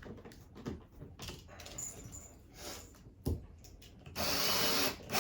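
Flat-pack furniture parts being handled: light knocks and rubbing of wooden panels, a sharper knock about three seconds in, then about a second of steady scraping noise near the end.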